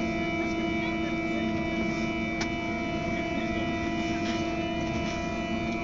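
Steady electrical hum with several fixed overtones from a Tramway Français Standard tram's onboard equipment, heard from inside the car over a low rumble. A single sharp click about two and a half seconds in.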